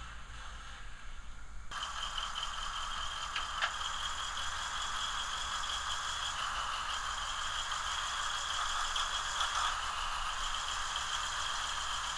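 Diesel prime mover sound from a model locomotive's DCC sound decoder, a Siemens SC-44 Charger engine recording played through a tiny N scale speaker, running steadily with a rattly, tinny edge. It steps up sharply in loudness and brightness about two seconds in and then holds even.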